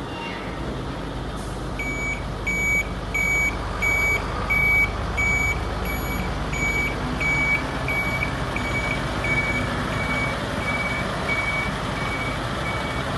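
Truck reversing alarm beeping at a steady pace, about three beeps every two seconds, starting about two seconds in and growing fainter in the second half. This is the sign that the Scania P94 260 lorry is in reverse. Its diesel engine runs underneath.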